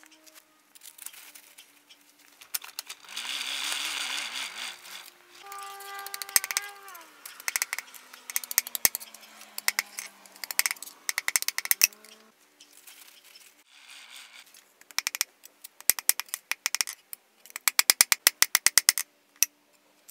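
Hammer striking the steel tang of an antique drawknife on a steel anvil: a long series of sharp metallic strikes, coming in fast runs towards the end. A few seconds in, before the strikes, there is a stretch of hissing noise.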